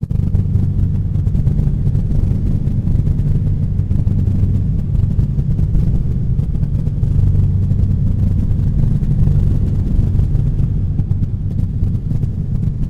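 A deep, steady rumbling drone with a low hum running through it, starting abruptly out of silence: a sound-design rumble laid under an animation, not a recorded source.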